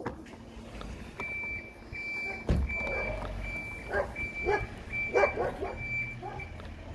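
A vehicle's reversing alarm beeping at an even pace, about one and a half beeps a second, with a dog barking several times over it in the second half. A dull thump about two and a half seconds in.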